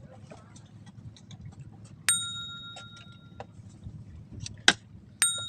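A small metal bell struck twice, about three seconds apart, each strike ringing on in a clear high tone and fading. There is a sharp click just before the second ring.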